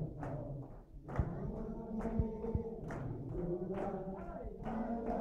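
A group of men singing a wedding dance tune together, clapping on the beat about once a second, with a few low thuds from stamping feet.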